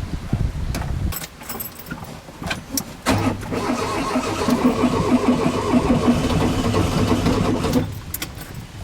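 Trabant 601 two-stroke twin engine being cranked on a cold start. The engine noise dies away about a second in, followed by a few clicks and rattles. From about three seconds in, the starter turns the engine over steadily and rhythmically for nearly five seconds without it catching, then cuts off.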